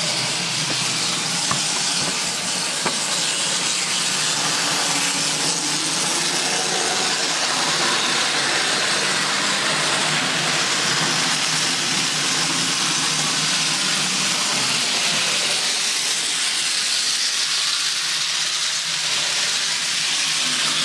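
Model trains running on a model railway layout: a steady whirring hiss of small electric locomotive motors and wagon wheels rolling on the track, with a couple of light clicks in the first few seconds.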